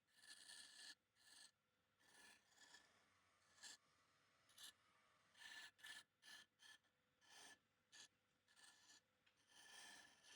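Faint, irregular rubbing and scraping strokes on a turned wood piece, about a dozen short strokes of uneven length.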